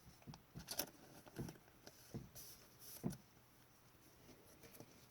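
Faint, scattered rustles and light taps of trading cards and a plastic card sleeve being handled.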